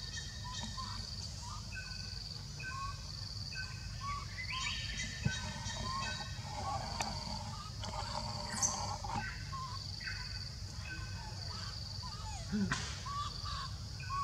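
Forest ambience: birds and insects calling in short, regularly repeated chirps at several pitches over a steady low rumble, with a single click about five seconds in.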